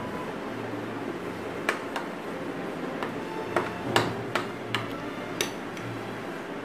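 Metal utensil stirring thick chocolate cake batter in a ceramic plate, clinking sharply against the china several times through the middle of the stretch, over a steady low hum.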